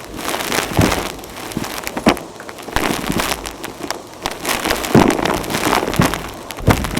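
Vacuum cleaner sucking up dry natural dirt, with dense crackling and crunching as grit and debris rattle up the nozzle and hose over the steady rush of the motor.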